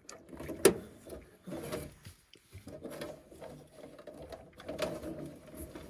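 Stubby ratcheting screwdriver driving a screw in short bursts of rasping ratchet clicks as the screw is tightened, with one sharp click about two-thirds of a second in.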